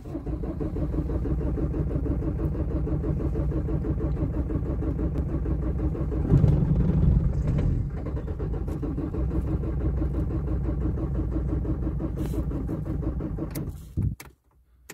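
An engine running steadily with an even low pulse, growing louder for a second or so about six seconds in, then stopping suddenly near the end.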